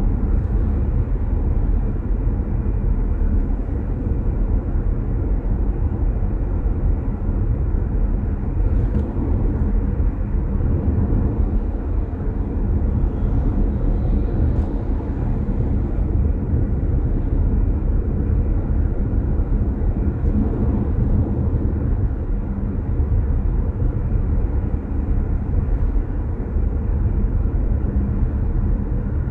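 Steady low rumble of a car driving at road speed: tyre, road and engine noise, unbroken throughout.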